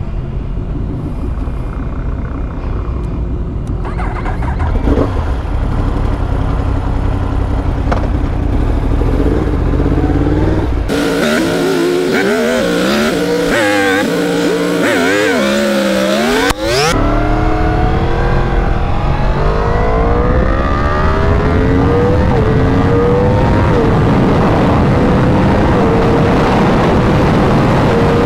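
2021 Yamaha R1's crossplane inline-four through a full Akrapovic exhaust, heard from the rider's position: running low and steady at first, then a few seconds of fast-forwarded, high-pitched warbling engine sound, then accelerating hard with rising pitch and several quick upshifts, with wind noise.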